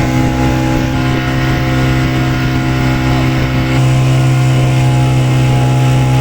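Motorboat engine running at a steady speed: a loud, even drone that steps up slightly about four seconds in.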